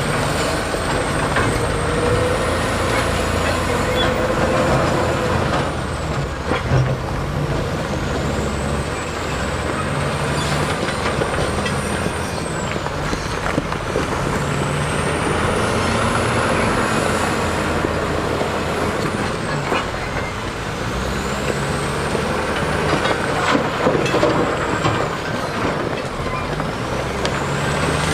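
Heavy diesel earthmoving machinery running under load, with a high whine that rises and falls every four to five seconds and occasional knocks.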